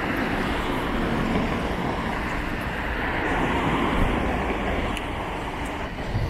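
Steady road traffic noise mixed with wind rumbling on the microphone of a camera carried on a moving bicycle.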